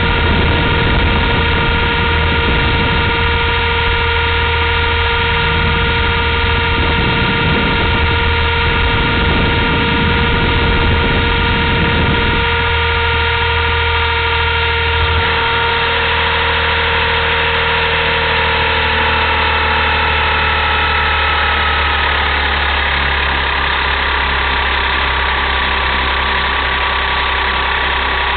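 Blade 230S V2 RC helicopter in flight: a steady whine from its electric motors and spinning rotor, with a low hum beneath. The whine's pitch drops a little about halfway through and then keeps sliding slowly lower.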